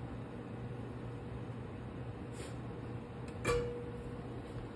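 Steady low hum and hiss of a kitchen, with a single light clink about three and a half seconds in that rings briefly.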